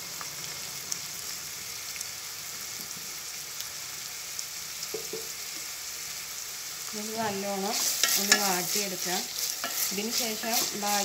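Chopped onions frying in hot oil in an enamel pot, a steady sizzle as the salted onions soften. About seven seconds in a spatula starts stirring them, and the sizzle grows louder, broken by quick scraping ticks.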